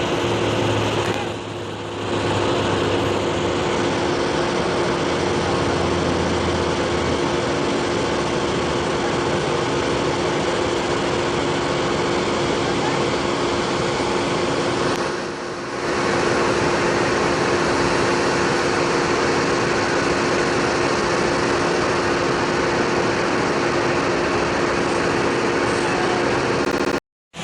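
An engine runs steadily at high speed, easing off briefly twice: about a second and a half in and again about halfway through.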